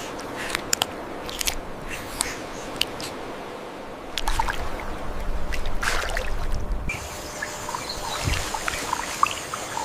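Water trickling and splashing, with many scattered small clicks and drips over a steady hiss; it swells and grows fuller about halfway through.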